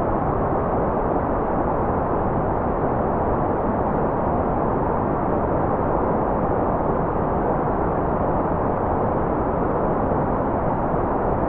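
Steady, unbroken white noise: an even, muffled hiss with little high treble, keeping the same level throughout.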